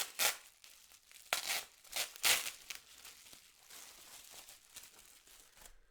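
Packaging crinkling and tearing as a lightsaber pommel is unwrapped by hand: several loud rustles in the first couple of seconds, then quieter steady rustling.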